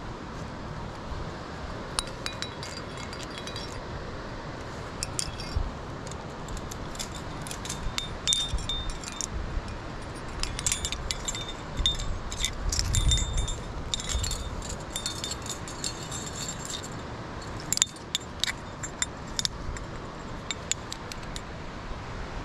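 Metal climbing gear, carabiners and other hardware on a climber's rack, clinking and jangling in irregular clusters of sharp, ringing clinks, busiest in the middle stretch.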